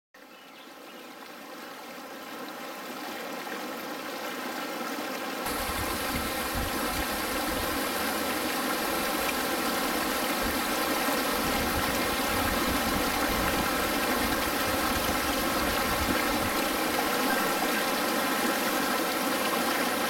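Small forest brook running high after rains, with a steady rush of water tumbling over rocks in small cascades. It fades in over the first few seconds and grows fuller about five seconds in.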